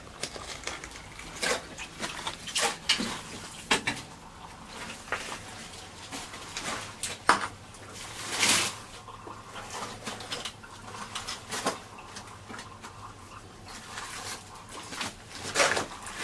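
Hands and rubber boots working through wet mud and sodden debris: irregular squelches, rustles and knocks, with a longer rustling scrape about halfway through.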